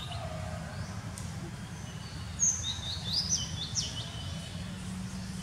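A quick run of short, high-pitched rising chirps about two and a half seconds in, lasting about a second and a half, over a steady low rumble.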